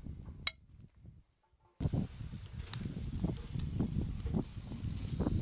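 Barbecue-sauced squirrel pieces sizzling and crackling on a charcoal grill, the sauce caramelising, with wind rumbling on the microphone. The sound comes in about two seconds in after a near-silent gap.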